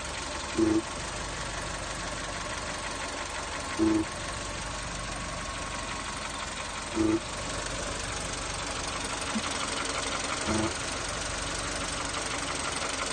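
VW Polo 6N2's 1.0-litre petrol engine running, with a steady whine over the engine noise and a short buzzing hum that comes back about every three seconds, four times. This is the buzzing/humming sound the owner is trying to trace.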